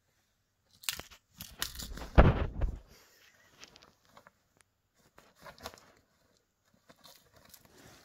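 A kitten scrambling inside a non-woven fabric shopping bag: irregular bursts of rustling and crinkling of the bag, the loudest about two seconds in with a dull thump, then smaller scuffs.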